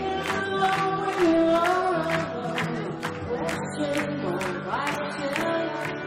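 Live band playing a rock song, with a sung melody held on long notes and sliding between pitches over a steady beat. The audience is clapping along.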